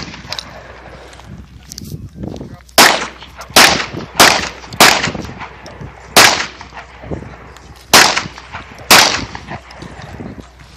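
Close, loud gunshots, seven in about six seconds, at uneven spacing of half a second to nearly two seconds, each with a short echo.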